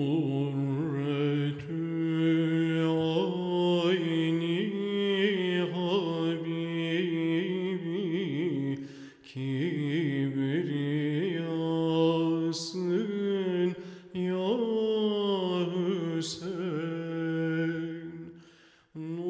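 A solo male voice chanting a slow, ornamented religious melody in long held phrases, with short breaks between them.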